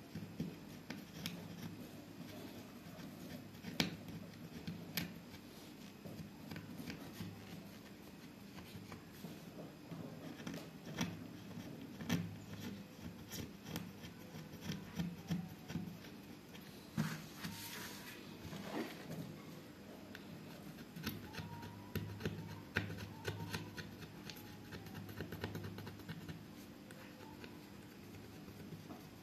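A small hand-held blade scraping and shaving along the edges of cut-out letters in a board: short, irregular scrapes and ticks, with a longer scrape about 17 seconds in.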